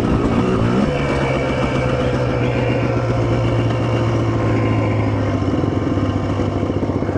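Quad bike engine running steadily at low revs, with a short wobble in pitch just after the start and then an even drone.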